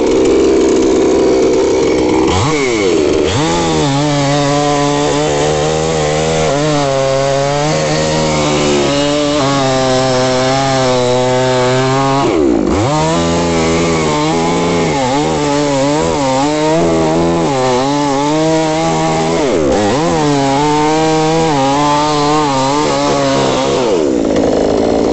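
Chainsaw cutting through a coconut palm trunk. It runs high, drops in pitch as the chain bites into the wood and holds there under load, with two brief dips partway through, then climbs back to high revs near the end.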